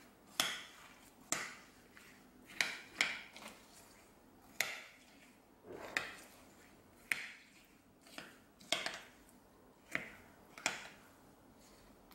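Metal spoon stirring and folding crushed Oreo cookies into soft ice cream in a glass container: about a dozen short scrapes and clinks of the spoon against the glass, roughly one a second.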